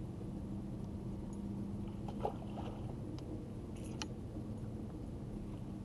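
Steady low hum of a bass boat's electric trolling motor holding one even pitch, with a sharp click a little over two seconds in and a few lighter ticks around four seconds.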